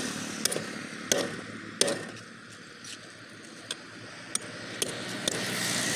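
Hammer blows on a steel tyre lever wedged between a tractor rear tyre and its rim: about seven sharp, irregularly spaced strikes, the loudest in the first two seconds. This is the tyre being worked loose from the rim for a puncture repair.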